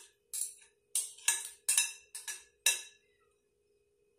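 A metal spoon clinking and scraping against a metal baking pan and a glass mixing bowl as bread-pudding batter is poured and spread: about seven short clinks over the first three seconds, then they stop.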